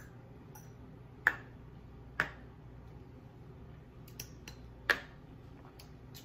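A few sharp, separate clicks over quiet room tone: three loud ones, about a second in, a second later and near the five-second mark, with fainter ticks between.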